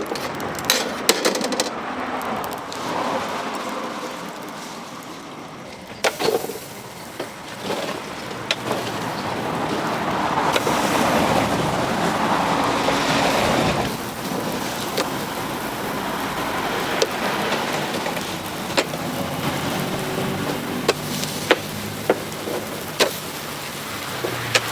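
Chicken grilling over charcoal: a steady sizzling hiss with scattered sharp crackles and pops. The hiss swells louder about ten seconds in, then eases off again a few seconds later.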